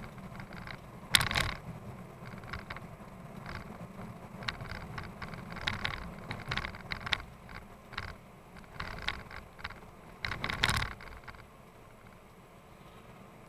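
Moving vehicle with a low engine and road rumble, its cabin rattling and clattering on and off. Two louder bursts of clatter come about a second in and again near the ten-second mark.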